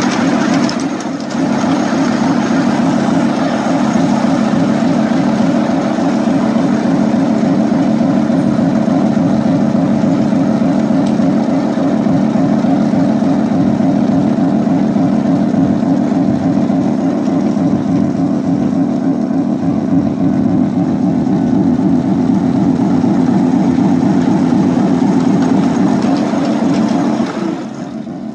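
Ride-on miniature electric locomotive running along the track, a steady rumble of motor and wheels on rail that drops away about a second before the end.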